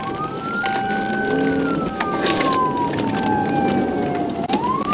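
Police car siren wailing: one slow rise and fall in pitch, beginning to rise again near the end.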